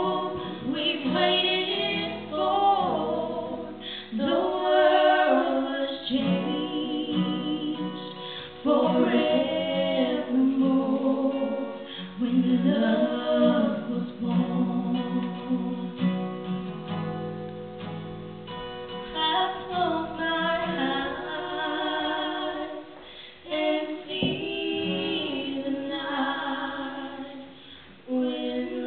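Two women singing a duet to acoustic guitar accompaniment, in sung phrases with short pauses between lines.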